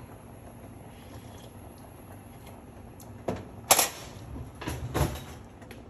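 Pot of soup boiling gently on an electric stove with a low, steady bubbling. About three seconds in come a few sharp knocks and a short clatter of handling at the pot, as the soup is scooped out for tasting.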